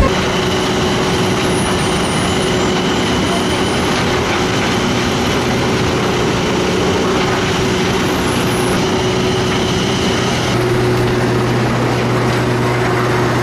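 Large industrial drum wood chipper running, a steady dense mechanical noise with a constant hum. About ten and a half seconds in, a deeper hum comes in and the high hiss drops.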